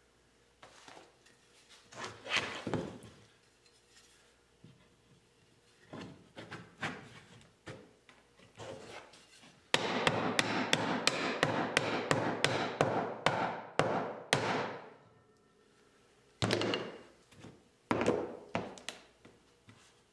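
Wooden mallet striking a glued sliding-dovetail joint in wood to drive it home: a quick run of hard blows, about four or five a second, lasting some five seconds, after scattered knocks and rubbing as the wooden parts are fitted together. A few single knocks follow.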